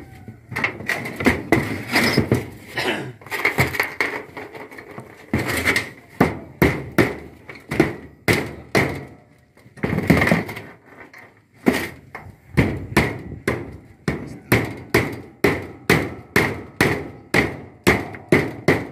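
Hammer blows driving nails through a satellite dish mount's base into the roof frame. The strikes come irregularly at first, then settle into a steady run of about two blows a second in the second half.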